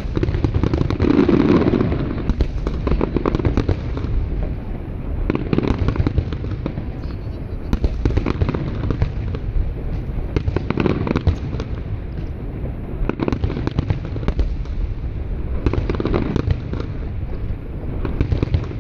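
Aerial fireworks in a rapid barrage: many shells bursting close together in a dense run of bangs and crackle, with louder swells of booms every few seconds.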